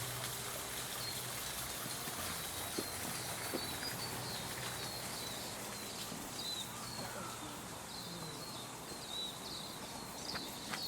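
Outdoor garden ambience: small birds chirping again and again over a steady hiss, with a low hum that fades out about halfway and a few sharp clicks.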